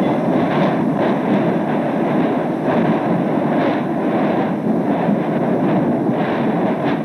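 Explosive eruption of Hekla volcano on a 1947 archival film soundtrack: a dense, continuous rumble with irregular sharper bursts about every second.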